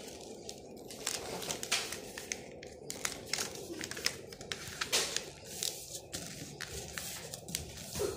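A sheet of paper being folded and handled by hand: irregular short rustles and crinkles as it is creased into a rocket shape, over a steady low background hum.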